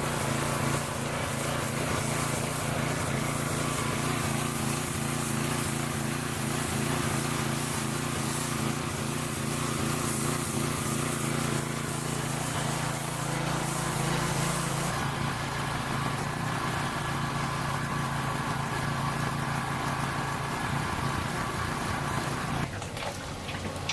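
Vehicle engine running steadily with a constant low hum under a broad hiss; the hiss eases about fifteen seconds in, and the engine sound drops away about a second before the end.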